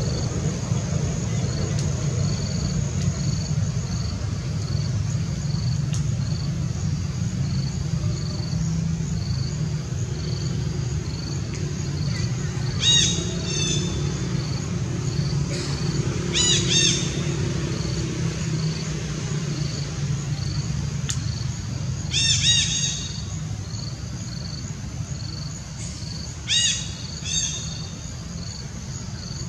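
Outdoor ambience of a steady insect buzz with a regular pulse over a low rumble, broken by five short high-pitched animal calls, the last two in quick succession near the end.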